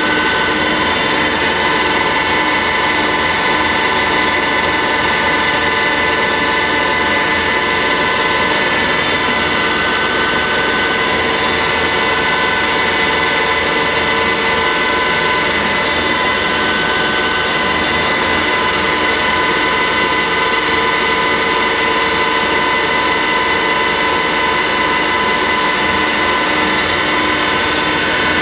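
CNC lathe running a machining cycle dry, without coolant: a steady spindle whine with several held tones over the noise of the tools cutting a small primer module.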